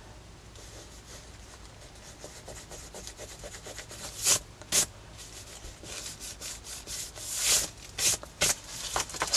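Fingers rubbing dried masking fluid off a sketchbook page: faint rubbing on paper at first, then louder, quicker strokes in the second half.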